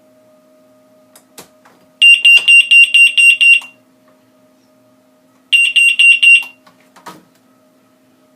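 Telco S084 doorknob alarm sounding a loud, high-pitched pulsed electronic beep in two short bursts, about four pulses a second. It is set off by jolts to the locked door. A few brief knocks of the door being jolted come before and after the bursts.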